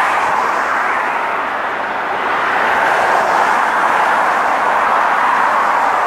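Steady road noise from passing car traffic, an even tyre hiss that dips slightly about two seconds in and then picks up again.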